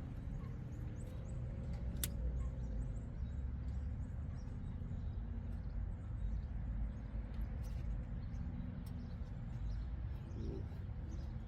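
Light clicks and handling noise from spark plug wires being fitted and routed on the engine, one sharp click about two seconds in, over a steady low background rumble.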